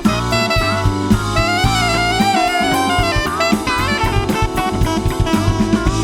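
Live funk band playing an instrumental passage: a saxophone line over bass and a drum kit keeping a steady beat.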